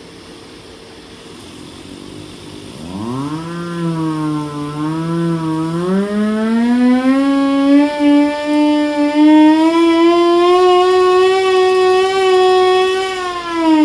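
Hand-crank siren, fed by a blower, winding up about three seconds in: its wail rises sharply, wavers, climbs to a loud steady high pitch and begins to wind down near the end. A quieter steady running noise comes before it.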